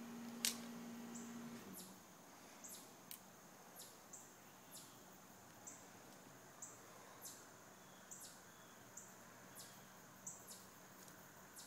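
Faint, high wildlife chirps repeating a couple of times a second, each a short high note that drops quickly in pitch. A sharp click about half a second in, and a steady low hum that stops about a second and a half in.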